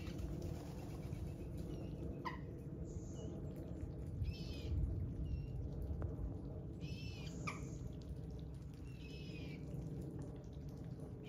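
Birds calling over a steady low background rumble: a few short, sharp rising chirps and several brief wavering high-pitched calls, each lasting under a second.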